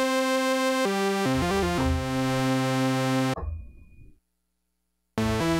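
Novation Bass Station 2 analogue monosynth playing a buzzy, detuned saw-wave lead patch with a square-wave sub oscillator, while ring modulation is mixed in. It plays a held note, a quick run of short notes, then a long note that stops about three and a half seconds in, leaving about a second of silence before fast notes start again near the end.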